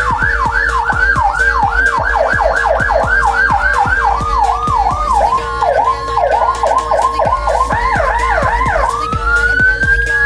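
Electronic vehicle siren cycling through its tones. Quick falling sweeps come about three a second, then a lower, faster pattern about four seconds in, then a higher burst of sweeps. Near the end it rises into a long wail that holds high.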